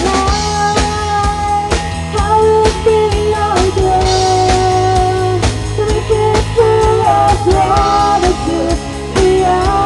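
A woman singing into a microphone with a live band, holding long notes that step up and down in pitch, over electric guitar and a drum kit.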